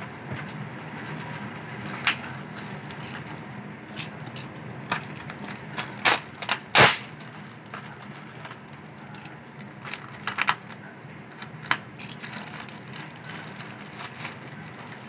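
Plastic parcel wrapping and bubble wrap being handled and torn open: irregular crinkling with sharp crackles and snaps, the loudest of them about six to seven seconds in.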